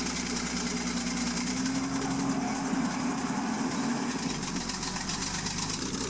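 Small crawler bulldozer's engine running steadily as the machine works its way up a steep sandy slope.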